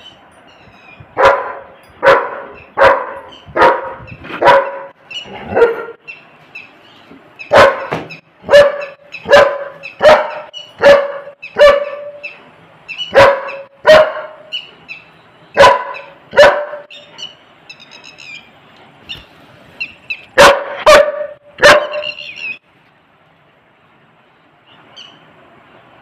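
German Shepherd barking at birds outside a window: sharp barks about one a second, in runs of two to six with short pauses, about nineteen in all, stopping about 22 seconds in.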